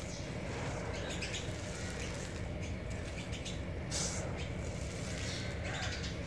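Dry soil and small gravel pouring from cupped hands onto a dirt pile, in short trickling falls, over a steady low rumble.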